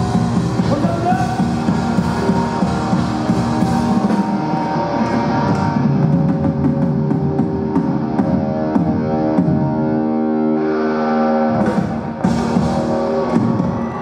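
Live rock band playing loudly: electric bass guitar, guitar and drum kit.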